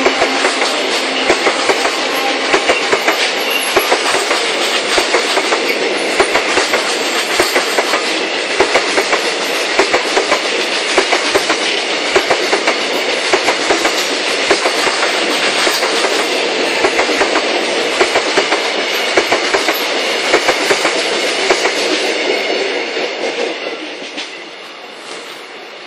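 Freight train of tank wagons rolling past, wheels clacking in quick pairs over rail joints above a steady rumble. The sound fades away near the end as the last wagon goes by.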